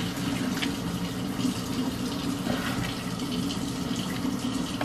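A spoon stirring wet jambalaya rice and liquid in a large pan, a sloshing, wet scraping with small clicks of the spoon. A steady low hum runs underneath.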